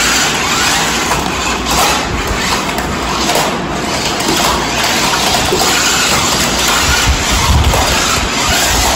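Battery-powered RC stunt car's electric drive motors and gears whirring as it runs and tumbles across a tiled floor, with now and then a brief knock.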